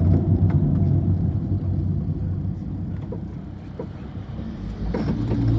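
Steady low rumble of engine and road noise inside a moving vehicle, easing a little about halfway through and rising again near the end, with a few light knocks.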